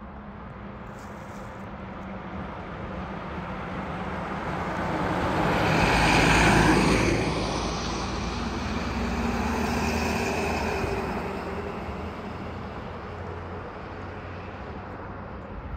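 A fire engine's diesel engine and tyres passing close by, loudest about six seconds in, followed a few seconds later by an ambulance passing, then both fading as they drive away.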